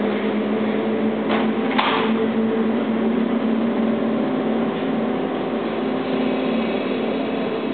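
Steady low hum of a stationary Seibu old-101-series electric train, with two short hisses about a second and a half in as its sliding doors close.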